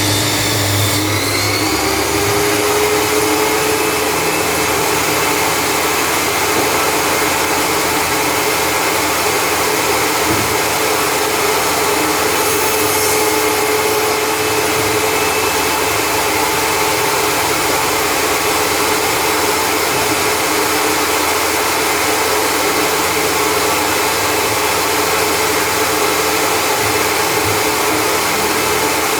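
Table saw running steadily with a continuous machine whine; its pitch rises about a second in and then holds.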